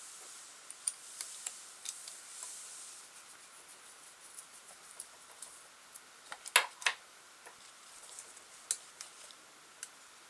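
Scattered light clicks and taps from small parts being handled, with a sharper pair of clicks a little past the middle: the drive shafts of an Axial SCX10 RC crawler being fitted back on by hand.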